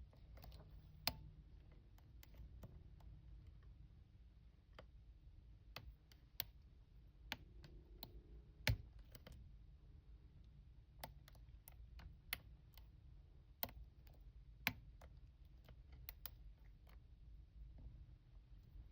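Faint, irregular small metallic clicks of a hook pick and tension wrench working the pins inside an aluminium-bodied Master Lock padlock during single-pin picking.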